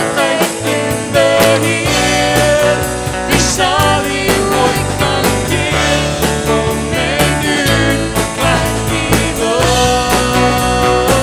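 Afrikaans worship song playing: a sung melody over a full band with drums, and the bass comes in about two seconds in.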